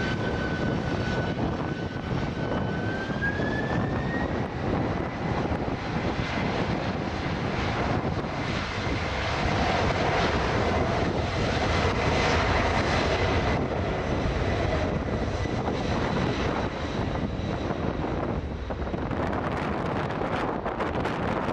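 Jet airliner's engines passing with a steady high whine that rises in pitch about three seconds in, growing louder to a peak around the middle and fading towards the end. Wind rushes on the microphone underneath.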